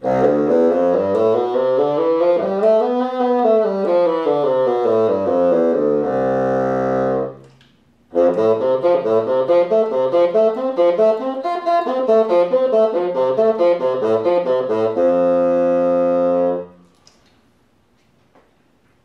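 Solo bassoon playing two fast phrases: a quick scale run that climbs and comes back down to a held low note, then, after a brief breath about seven seconds in, a run of rapid leaping notes that ends on another held low note.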